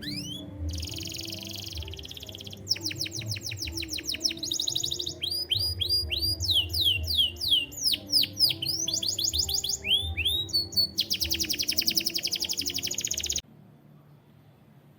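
Domestic canary singing a long song of changing tours: rapid rising and falling whistled sweeps alternating with fast buzzy trills. The song cuts off suddenly near the end.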